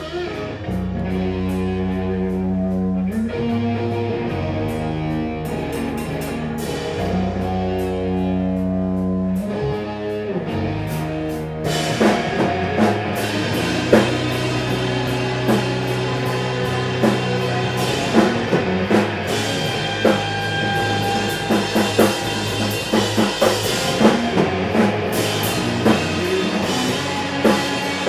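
A rock band playing live through amplifiers: electric guitars hold ringing chords over a low bass line, then the drum kit comes in about twelve seconds in and the full band plays on.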